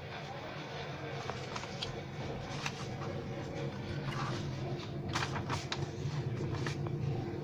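Paper instruction sheet of a plastic model kit rustling and crackling as it is unfolded and pressed flat by hand, with a cluster of crisp crackles about five seconds in, over a steady low background hum.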